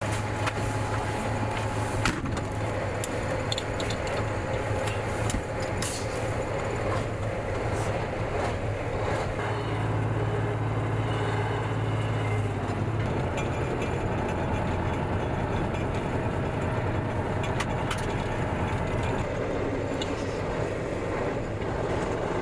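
Engine of a Grad rocket launcher truck running under way, heard from inside the cab: a steady low drone over road and cab noise, with scattered rattles and knocks. The drone swells a little about halfway through, then settles again.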